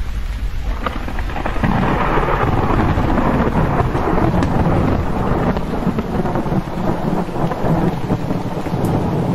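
Thunder rumbling over steady rain: a few sharp crackles, then a deep rumble that swells about a second and a half in and carries on, with the rain hiss underneath throughout.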